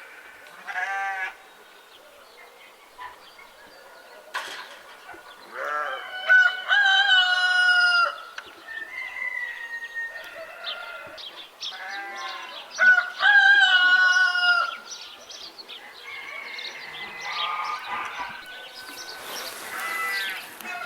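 Farmyard ambience: a rooster crows twice, the loudest calls, about six and twelve seconds in, each crow lasting about two seconds. Between them hens cluck, other farm animals call briefly, and small birds chirp.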